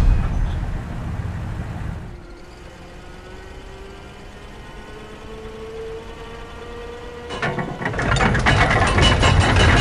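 Heavy mechanical gate running, a loud ratcheting rattle that fades out over the first two seconds. In the quieter stretch a faint vehicle engine tone rises slowly in pitch, and about seven seconds in the gate's ratcheting rattle starts again, loud, as it closes.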